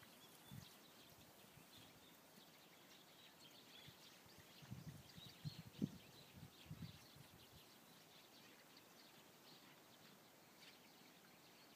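Faint, distant birds chirping in short high calls scattered throughout, with a few low gusts of wind on the microphone a little before the middle; otherwise near silence.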